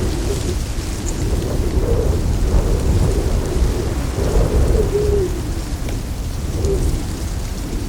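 Steady low rumble and hiss of outdoor natural ambience, with a few short tones that fall in pitch, the clearest about halfway through.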